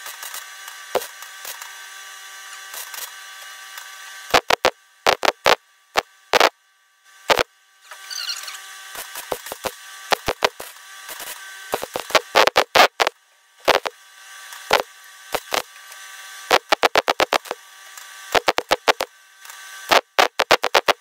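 MIG welder laying short tack and stitch welds on a steel repair panel of a Mk2 Ford Escort: bursts of crackling, each under a second, in clusters with pauses between, over a faint steady hum.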